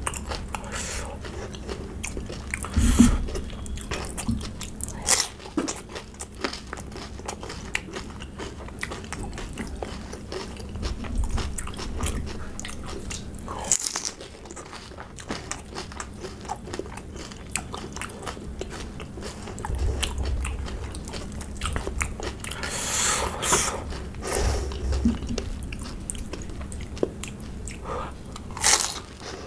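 Close-miked crunching and chewing of pani puri: crisp fried puri shells cracked with the fingers and bitten, giving a run of small sharp crackles with several louder crunches, along with bites of raw green chilli.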